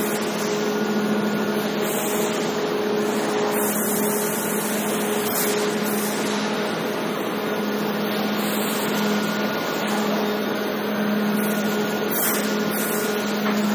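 Electric motor and hydraulic pump unit of a tunnel kiln's kiln-car handling machinery running with a steady hum.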